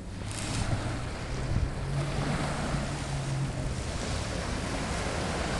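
Small waves breaking and washing up a sandy shore, with wind buffeting the microphone.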